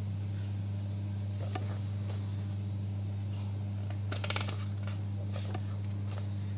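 Pages of a printed catalogue being turned by hand: short paper flicks and rustles, with a louder crinkling flurry about four seconds in, over a steady low hum.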